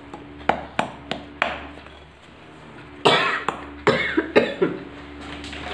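Silicone spatula stirring a stiff flour batter in a glass bowl, knocking sharply against the glass a few times, with louder scraping knocks about three and four seconds in.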